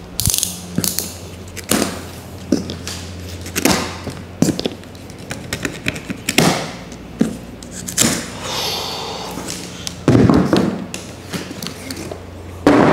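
Cardboard shipping cartons being handled while their plastic strapping is cut and pulled off. There is a series of knocks and thumps, a longer rubbing noise about eight seconds in, and a heavier thump about ten seconds in.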